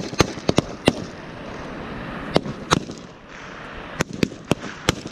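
Rifle shots fired in quick strings, each a sharp crack: about four in the first second, a pair near the middle and four more in the last second.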